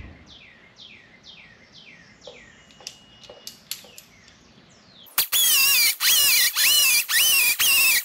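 A small hand-held grinder, most likely air-powered, grinding fresh primer off the sheet metal of a car's wheelhouse. It starts about five seconds in with a loud high whine in short bursts about twice a second, the pitch rising as the wheel spins up and dropping as it bites into the panel. Before that, a bird chirps faintly about twice a second, each chirp falling in pitch.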